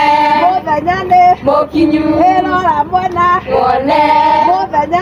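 A group of women singing a song together, unaccompanied, their voices holding and sliding between sustained notes.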